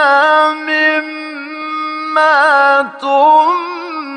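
A man's voice chanting Quran recitation in a melodic tajwid style, drawing out each word on long held notes with wavering ornaments.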